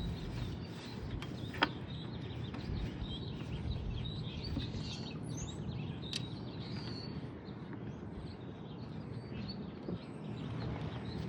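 Small birds chirping over a steady low background rumble, with one sharp click about one and a half seconds in.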